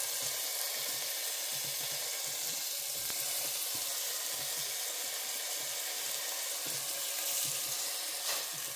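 Chunks of leftover steak sizzling steadily in hot fat in a nonstick frying pan.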